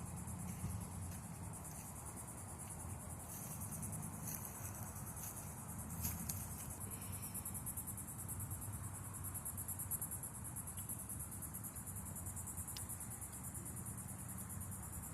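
Steady high-pitched insect trilling, a chorus of crickets or similar insects pulsing without a break, with a low rumble underneath and a few faint clicks.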